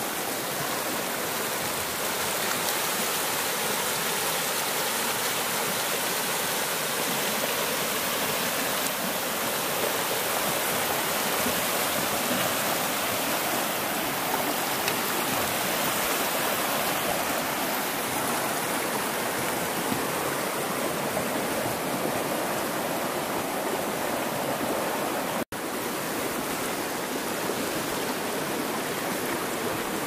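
Mountain stream rushing over rocks: a steady, even wash of flowing water, with a split-second dropout near the end.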